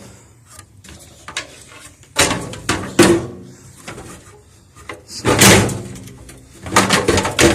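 Clunking and rattling of a loose part being wiggled by hand, in three bursts. The part has play in its mounting and flops around.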